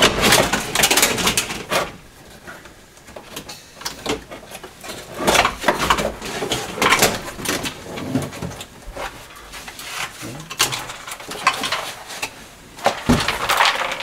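Plastic dashboard moulding of a 1980 Opel Kadett D being worked loose and pulled out of the car: bursts of clattering, scraping and creaking plastic, with quieter pauses between the pulls.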